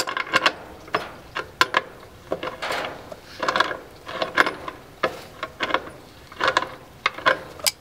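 Two channel-lock pliers tightening a nut and lock washer on a bolt: irregular metal clicks and short scrapes as the jaws grip, turn and reset on the nut.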